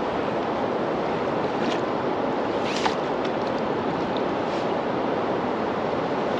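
Strong wind blowing steadily across the microphone, a constant rushing hiss, with a single short click a little under three seconds in.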